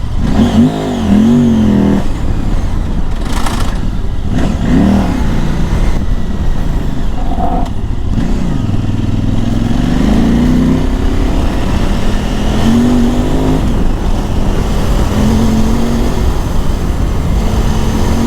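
KTM 950 Adventure S's LC8 V-twin engine under way, revving up and dropping back several times in the first half, then running at a steadier pitch.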